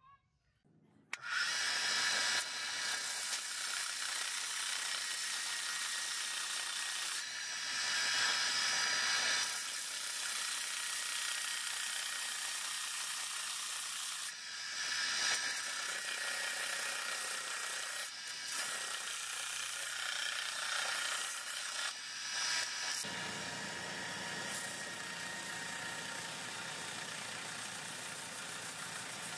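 Belt sander running, with the cleaver's wooden handle scales and steel tang pressed against the abrasive belt to grind them flush. It starts about a second in as a steady whir under a grinding hiss, which swells and eases several times as the work is pressed on and eased off.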